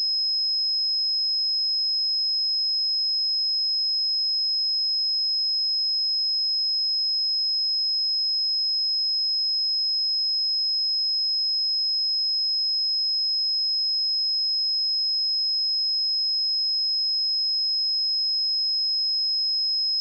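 A pure 5125 Hz sine-wave test tone, one steady high-pitched whistle that does not change in pitch or loudness.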